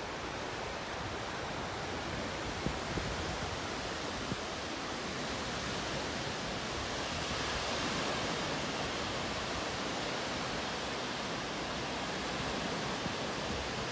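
Sea waves washing onto a beach: a steady hiss of surf that swells a little past the middle.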